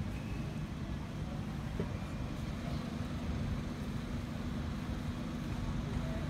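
Steady low hum of a running engine, with a steady low tone joining about two and a half seconds in.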